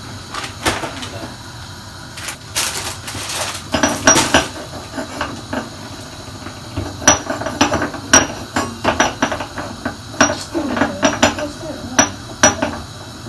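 Kitchen clatter of a frying pan, pots and utensils being handled on the counter: a string of knocks and sharp metallic clinks, several of them ringing briefly. A short rush of noise comes about two and a half seconds in.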